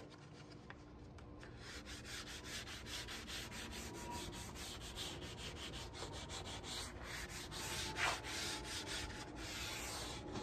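Hand sanding the edge of a pine board with a sanding disc held in the fingers: quick back-and-forth scraping strokes of abrasive on wood, with one louder stroke about eight seconds in.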